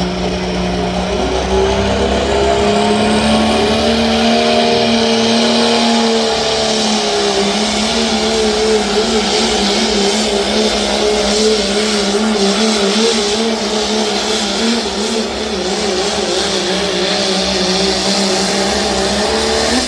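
Cummins diesel engine of a Dodge pulling truck running at high revs under full load through a sled pull. Its engine note holds high with a slight waver as the load changes.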